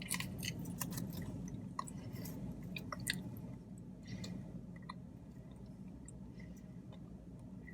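Close-up chewing of a fried chicken finger: wet mouth clicks and smacks, busier in the first few seconds and thinning out after about halfway.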